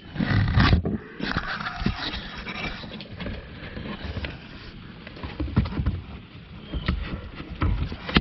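Irregular scraping, rustling and knocking of plastic under a car's dashboard, as the blower motor and its plastic shroud are handled and pushed into place by hand, with a heavier burst of rubbing in the first second and scattered sharp clicks.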